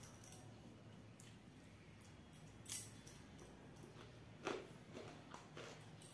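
Faint sounds of eating rice by hand from a steel plate: fingers mixing the rice, with a few short sharp clicks, the loudest a little under three seconds in, over a faint low hum.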